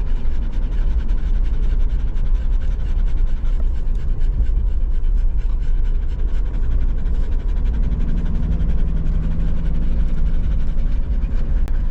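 Golden retriever panting steadily inside a moving camper van, over the van's constant low road rumble.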